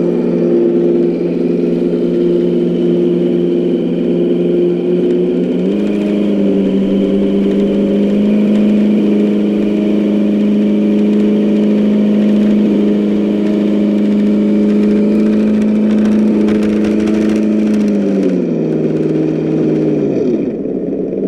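Electric motor and gear drivetrain of a Traxxas TRX-6 6x6 RC crawler whining steadily as it crawls through loose sand. The whine steps up in pitch about six seconds in, holds, then drops and winds down near the end as the truck slows.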